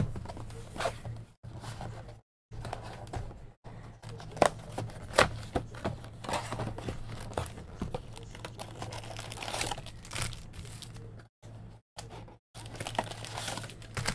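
Cardboard mega box of football trading cards being opened by hand and its foil card packs pulled out and stacked, with crinkling and tearing and many short sharp clicks and taps over a low steady hum.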